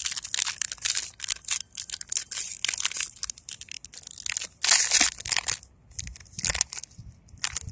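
Foil blind-bag wrapper crinkling and crackling as it is crumpled and handled by hand, in irregular crackles with a louder stretch about five seconds in.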